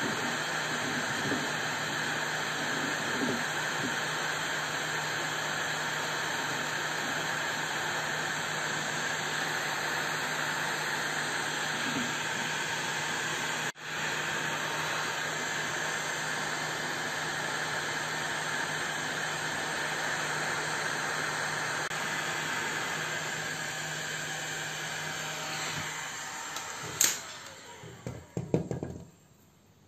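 Hot-air rework gun blowing steadily onto a graphics card's circuit board, reflowing solder to reattach a small capacitor: an even airy hiss over a low hum. The airflow stops about 26 seconds in, followed by a couple of sharp clicks.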